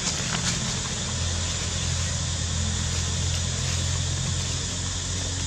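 A steady low mechanical hum, like an idling engine, under a constant even hiss, with a few faint clicks.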